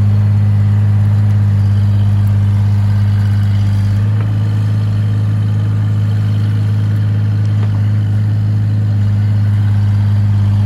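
Excavator engine running steadily, a loud low drone that holds one pitch, easing slightly about four seconds in.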